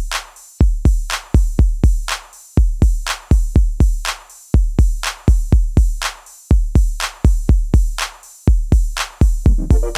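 Background music: an electronic drum-machine beat with deep kick drums and a sharp clap or snare hit about twice a second, with a synth melody coming in near the end.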